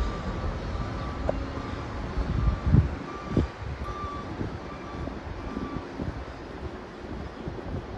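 A vehicle's reversing alarm beeping evenly, about two short high beeps a second, stopping about six seconds in. Under it runs a steady low rumble, with a few loud wind thumps on the microphone between two and three and a half seconds in.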